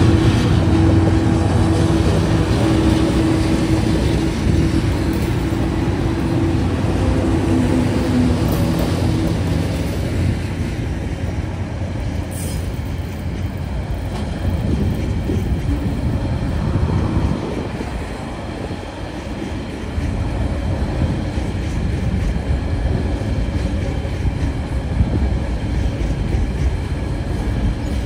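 TasRail TR-class diesel locomotives passing at close range with their engines running, their steady hum fading after about ten seconds as the locomotives move away. Then the continuous rumble and clatter of container wagons rolling over the rails, with a brief high squeak about twelve seconds in.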